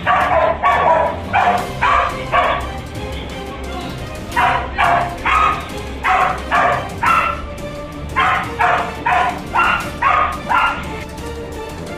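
A dog barking in three runs of about seven sharp barks each, with short pauses between runs, over steady background music.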